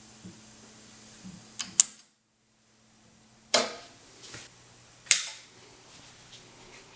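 Pioneer CT-F750 cassette deck's transport mechanism clicking as it is operated: a quick double click, then two single clacks about a second and a half apart, with a faint low hum between them.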